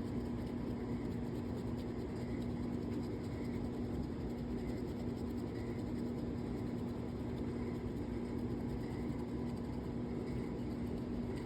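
Crayon rubbing back and forth on paper, faint, over a steady low electrical hum.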